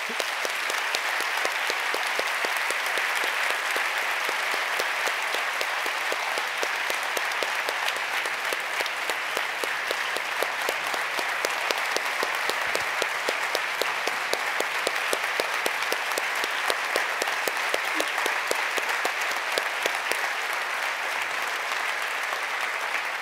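Audience applauding: dense, steady clapping from a large crowd in a theatre.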